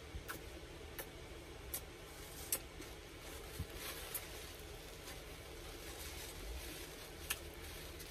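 A person chewing a sandwich close to the microphone: quiet mouth noises with a handful of sharp, wet lip-smacks and clicks, a second or so apart.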